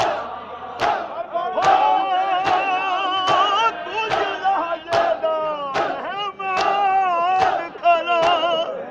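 A male reciter chanting a noha, the long sung lament lines carried over the crowd, while a crowd of men beats their chests (matam) in unison, about one loud slap every 0.8 s.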